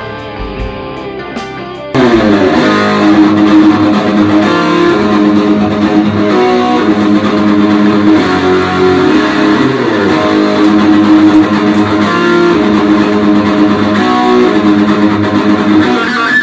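A quieter musical intro for about two seconds, then an African mahogany thinline single-cutaway electric guitar with Seymour Duncan JB and Jazz humbuckers comes in suddenly and loudly, playing sustained rock chords and riffs through an amplifier.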